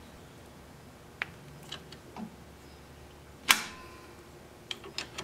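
Handling knocks and clicks as a wooden burl blank is seated into a metal lathe chuck, with one loud metallic clank about three and a half seconds in that rings briefly, then three quick clicks near the end.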